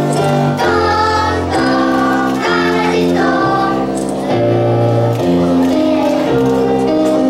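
Children singing a song over instrumental accompaniment, the notes held and changing in a steady melody.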